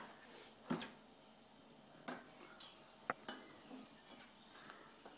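A kitchen knife scraping and tapping on a plastic cutting board as diced carrot pieces are pushed off into a stainless steel pot: a handful of light, separate clicks and knocks.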